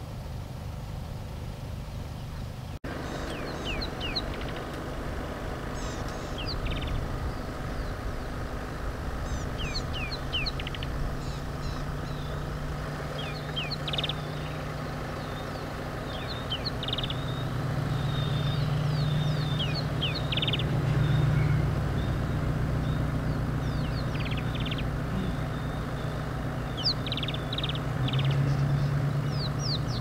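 Birds calling again and again with short high chirps and quick downward whistles, over the steady low hum of an idling vehicle engine.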